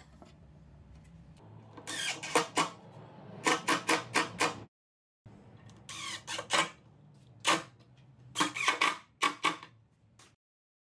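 DeWalt cordless impact driver driving screws into wood in a run of short, sharp hammering bursts. Several clusters of clicks with brief pauses between them, stopping shortly before the end.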